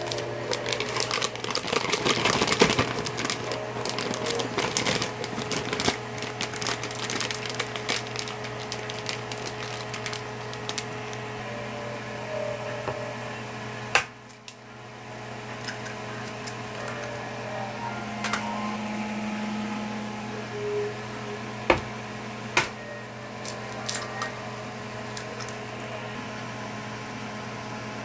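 Handling noises of ingredients going into a glass blender jar: a run of crackling, tapping clatter over the first several seconds, a sharp click near the middle, and a few scattered clicks later. A steady low hum runs underneath.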